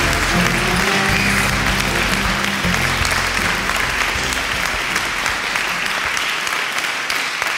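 A crowd applauding over the last bars of a song; the music ends about three seconds in and the clapping carries on alone.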